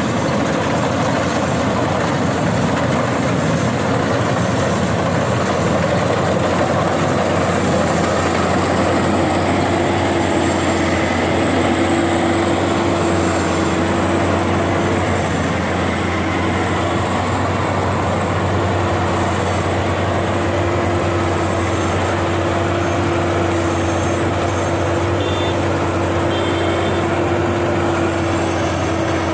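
Rice combine harvester running steadily under load, a constant low engine drone with a steady higher whine over it.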